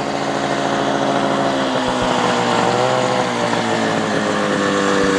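A motor engine running steadily under load, its pitch wavering slightly as it grows gradually louder.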